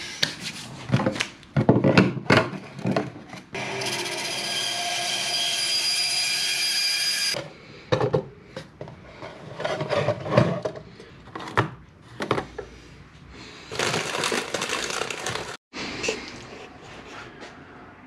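Workshop assembly sounds: clicks and knocks of hard plastic parts being handled and fitted, with a power tool running steadily for about four seconds a few seconds in. A second, shorter and noisier tool run comes about two-thirds of the way through.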